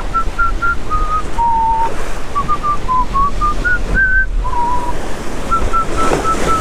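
A person whistling a slow tune in single clear notes that step up and down, over steady surf washing against jetty rocks and wind noise on the microphone.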